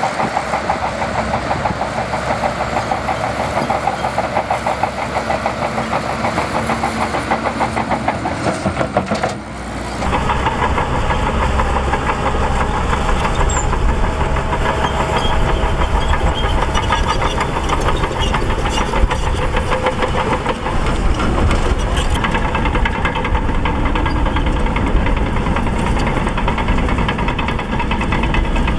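Diesel engine of a Shantui DH17C2 bulldozer running loudly with a fast, even pulsing beat. About ten seconds in, the sound changes abruptly and turns deeper and heavier.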